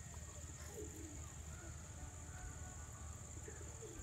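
A steady high-pitched chorus of crickets, with a faint low hum underneath.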